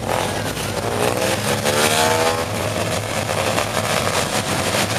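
Classic cars cruising slowly past with engines rumbling. One engine revs up and back down briefly, about one and a half seconds in.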